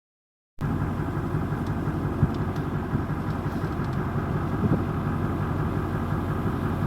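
A vehicle engine idling steadily, cutting in abruptly about half a second in.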